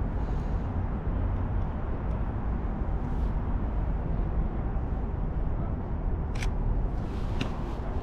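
A camera shutter clicks twice, about a second apart, near the end, over a steady low outdoor rumble.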